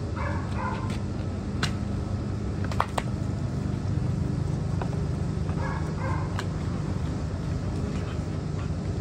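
American Bully dogs whining briefly, about half a second in and again about six seconds in, over a steady low hum, with a few sharp clicks.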